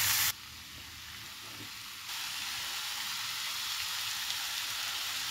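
Marinated chicken pieces with onion and tomato sizzling steadily in hot oil in a non-stick pan. The sizzle drops suddenly about a third of a second in and picks up again around two seconds in.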